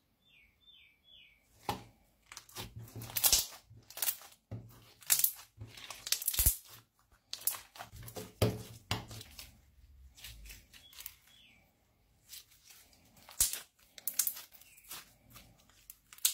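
Hands squeezing, stretching and folding glossy glitter slime with star sequins, making irregular crackling clicks and pops as it pulls apart and sticks to the fingers. The crackling is louder in the middle and again near the end.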